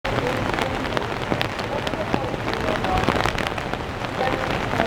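Steady rain falling, with many separate drops hitting close by as sharp ticks, and faint voices in the background.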